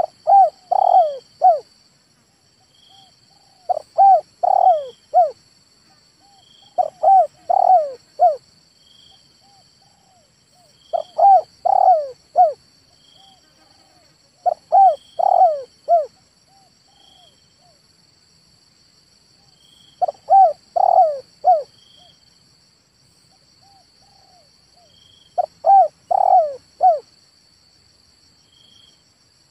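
Male spotted dove cooing. It gives seven phrases of three or four quick coos each, one phrase every three to five seconds. A steady, faint, high insect drone runs behind the calls.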